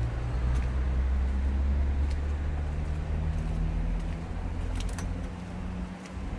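A motor vehicle's engine running close by: a low, steady rumble that fades away about five seconds in.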